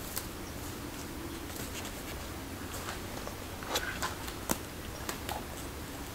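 Footsteps on a forest floor, with a few sharp, separate snaps of twigs breaking underfoot. The loudest snap comes about four and a half seconds in.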